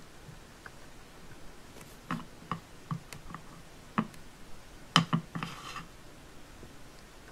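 Hard plastic toy parts of a Play-Doh playset clicking and knocking as they are handled: a handful of light taps, the loudest about five seconds in, followed by a brief rustle.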